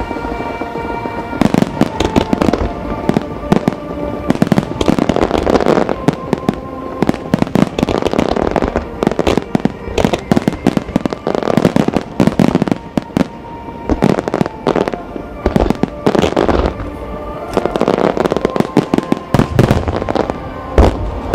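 Starmine fireworks display: a rapid barrage of shell bursts and launches, dense bangs and crackle coming in thick clusters every few seconds, with music playing alongside.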